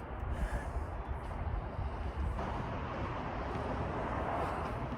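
Steady low rumble with hiss and no distinct events; the hiss grows a little fuller a couple of seconds in.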